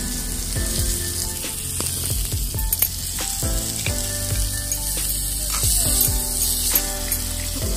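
Chopped tomatoes and onions sizzling in melted butter in a small clay pot, with a slotted spoon stirring them.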